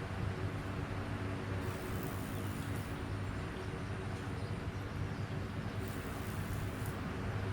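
A motor running steadily with a low hum, with a few faint clicks over it.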